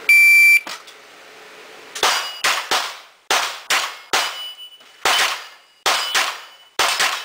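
Electronic shot-timer start beep, a loud high tone of about half a second, followed after a pause of about a second and a half by a fast string of about ten gunshots, some in quick pairs, with steel targets ringing after hits.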